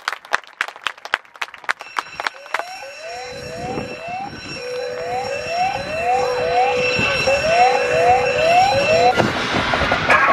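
Siren-like alarm sound effect: a rising whoop repeating about two to three times a second over a steady tone, growing louder. A run of sharp clicks comes before it, in the first two seconds or so.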